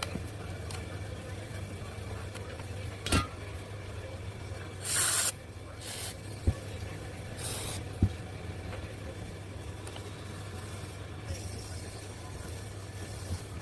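Short hisses of sprayed air, the loudest lasting about half a second, over a steady low hum, with a few sharp clicks between them.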